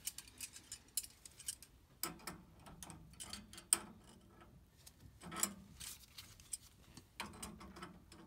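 A metal wrench clicking and clinking irregularly against a black iron gas pipe fitting as it is set on the union nut and worked to loosen the gas piping.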